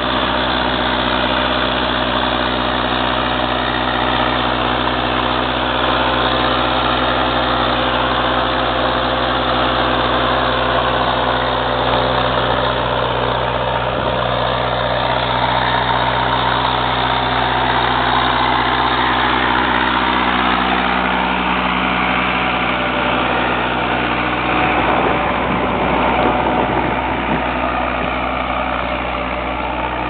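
Ursus 5314 tractor's diesel engine running steadily under load while pulling a plough.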